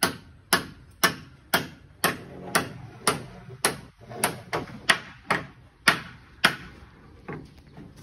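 Hammering at a steady pace of about two blows a second. The blows stop about three-quarters of the way through, followed by one last lighter blow.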